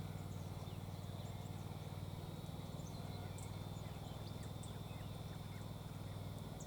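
Scattered faint, short chirps of small birds over a steady low rumble.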